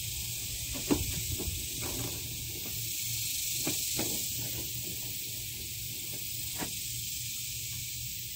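A steady hiss, with a few sharp separate clicks from a 7 mm ratchet being worked on small hex-head screws.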